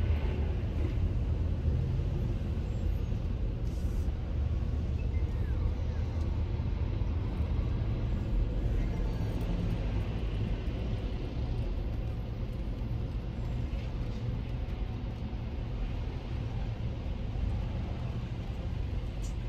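A car on the road: a steady, low rumble of engine and tyres.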